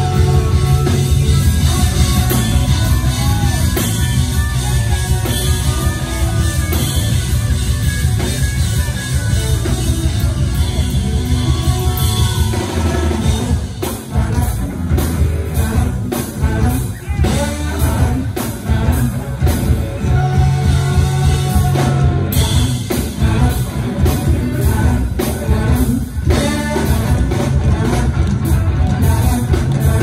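Rock band playing live with a singer over a steady bass and drum beat.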